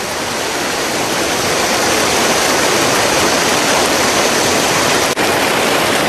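Rushing white water of a river cascade or waterfall: a steady, loud wash of water noise, with a momentary dropout about five seconds in.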